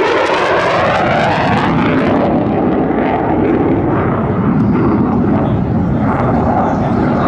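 F-35 fighter jet's single Pratt & Whitney F135 turbofan flying past, a loud, steady jet noise. It has a sweeping, phasing quality over the first two seconds, after which the high end dulls.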